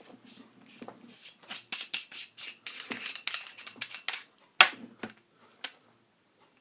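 A flashlight being handled and opened to get at its 18650 batteries: a run of small clicks and rattles, then one sharp click about four and a half seconds in and a lighter one a second later.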